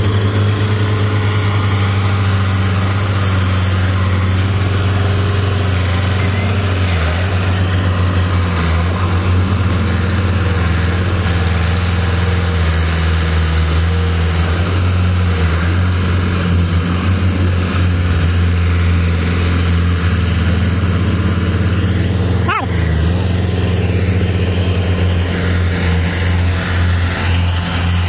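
An engine running steadily at a low, even pitch, with one short knock about 22 seconds in.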